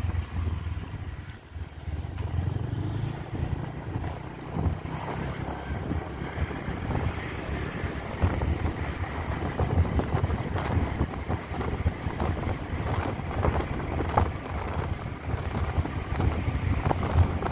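Wind buffeting the microphone on a moving motorbike, over a continuous low rumble of engine and road noise, with irregular gusts.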